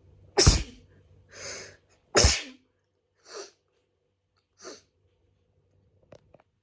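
A person sneezing twice, about two seconds apart, from hay fever, with a breath drawn between the sneezes. Two shorter, quieter breaths or sniffs follow.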